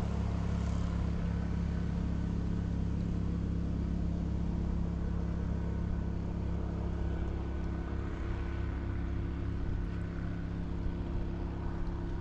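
A small boat motor running at a steady speed, an even hum with a low rumble, with wind and water noise around it.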